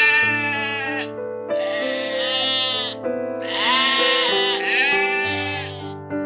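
Farm animal bleating several times, each call long and wavering, over background music with sustained chords.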